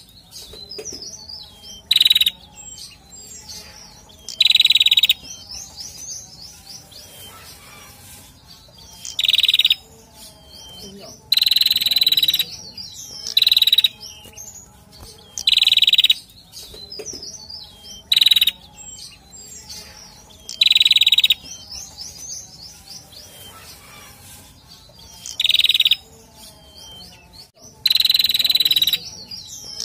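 Caged male prenjak (tailorbird) singing in loud bursts of rapid, shrill chirping, each lasting about half a second to a second and coming every two to three seconds, with softer runs of quick chirps between the bursts.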